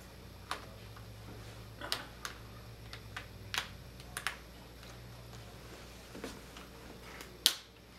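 Plastic screen bezel of a Gateway NE56R27U laptop clicking and snapping as its clips are pried loose by hand: a scatter of sharp separate clicks, the loudest near the end.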